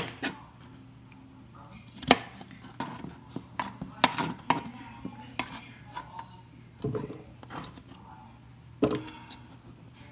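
Chef's knife cutting cucumber into bite-size chunks on a cutting board: irregular sharp knocks of the blade striking the board, some in quick succession. The loudest come about two seconds in and near nine seconds.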